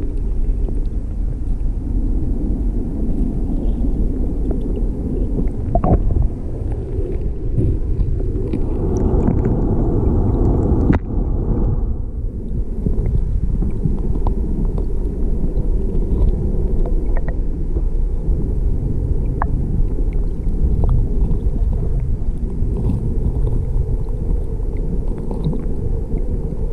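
Continuous low rumble of a river's current mixed with wind buffeting the microphone, with a few faint clicks.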